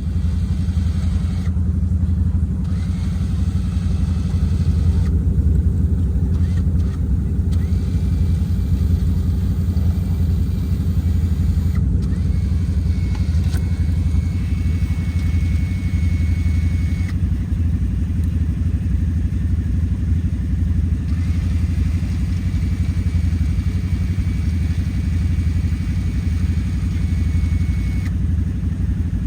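A vehicle engine idling steadily, a low even hum. A faint thin whine comes in twice, for a few seconds each time.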